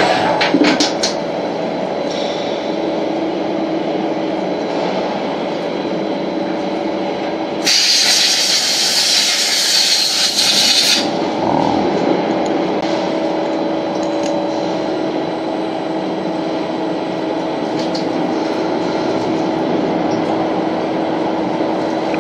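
SNK CNC lathe running through a machining cycle: a steady mechanical hum with a constant whine. About eight seconds in, a loud hiss comes in and stops suddenly about three seconds later.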